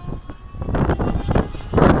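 Gusts of wind buffeting the microphone, swelling about three times and loudest near the end, over the steady high whine of a small RC plane's brushless electric motor (Blue Wonder 3000kv) and propeller.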